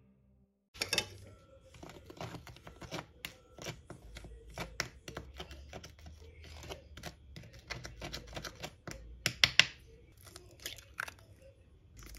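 Red spatula scraping and tapping through dry cake mix in a bowl: a run of small, irregular scrapes and clicks, with a few louder clicks about nine and a half seconds in.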